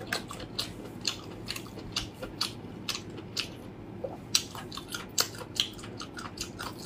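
Close-miked eating sounds of crab being chewed: wet mouth smacks and clicks, short and sharp, coming irregularly a few times a second.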